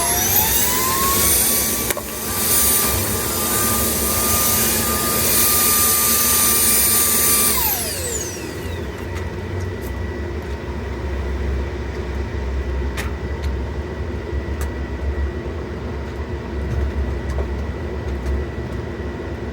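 Vacuum cleaner motor running on its strong setting: its whine climbs in pitch in the first second and holds. About seven and a half seconds in it winds down as it is switched off, leaving a low steady rumble with a few faint clicks.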